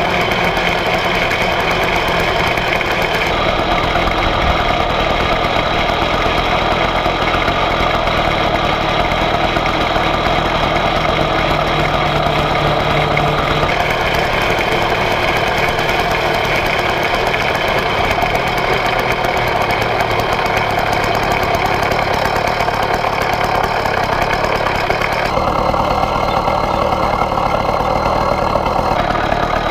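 Small air-cooled single-cylinder engine of a 1901 Indian Camelback replica motorcycle running steadily as the bike rides, heard close up from a camera on the bike. Its note shifts to a new pitch a few times, about 3, 14 and 25 seconds in.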